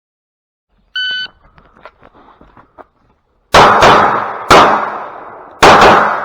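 A shot timer's short electronic beep, then after a couple of seconds of faint shuffling about five loud 9mm pistol shots from a Glock 45 fired in quick groups, each ringing out briefly.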